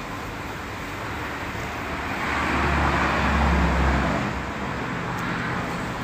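A road vehicle passing by, its low rumble swelling about two seconds in and fading away a couple of seconds later, over a steady background of traffic noise.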